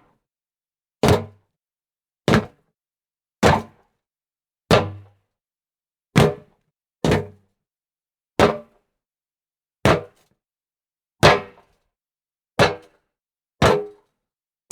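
Feet landing from jumps on hollow wood: about a dozen separate thuds, roughly one every second or so, each with a short low ring.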